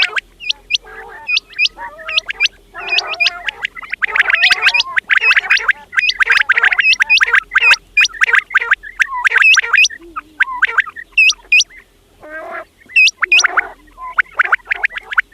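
Quails calling: rapid, sharp high notes that drop steeply in pitch, several a second, over a lower gargling, chattering rattle. The calling thins out briefly about two-thirds of the way through, then picks up again.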